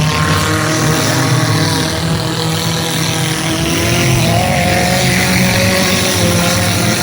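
Several demolition derby cars' engines running loudly together, their pitches drifting up and down as the drivers rev.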